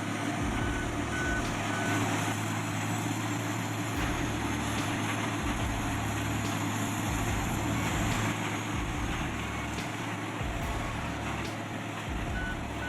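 Heavy machinery running steadily at work, with a reversing alarm beeping about twice a second for the first couple of seconds and again near the end.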